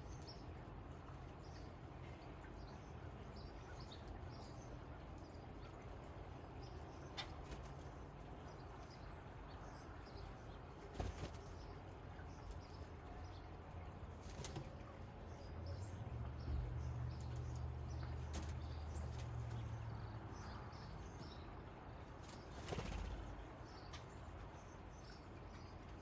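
Faint outdoor ambience with a steady low rumble that swells for a few seconds past the middle, a few sharp knocks, and faint bird chirps.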